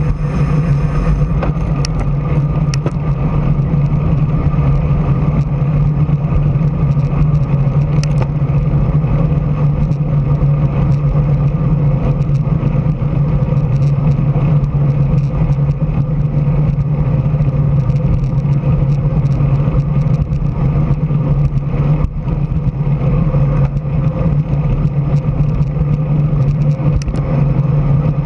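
Steady wind and road rumble from riding a road bike at speed, picked up by a bike-mounted camera as a continuous low hum, with a few faint clicks.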